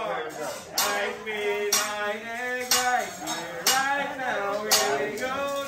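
Singing over music, cut by sharp metal clanks of a teppanyaki chef's spatulas striking the steel griddle about once a second.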